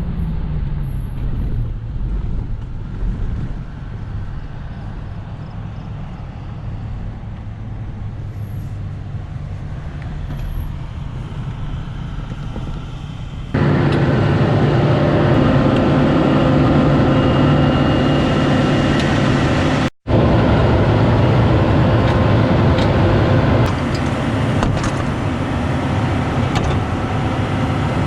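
A vehicle engine running steadily, its pitch dropping slightly at the start. About halfway through it becomes abruptly louder, and it cuts out for an instant a few seconds later.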